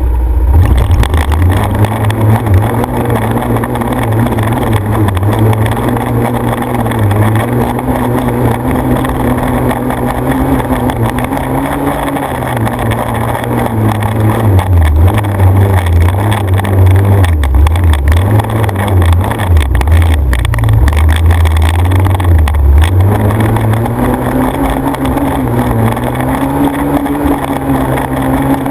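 Engine of an off-road vehicle on sand dunes, running hard, its pitch rising and falling as the throttle is worked, with wind noise on the microphone.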